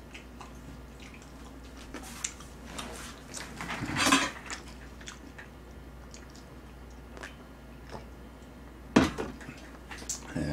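Metal pan and utensils being handled on a table: scattered light clinks and knocks, a louder clatter about four seconds in, and a couple of sharp knocks near the end.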